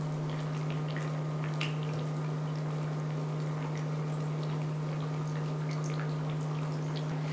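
Rounds of yeasted dough frying in hot sunflower oil: a steady sizzle dotted with small pops and crackles of spattering oil. A constant low hum runs underneath.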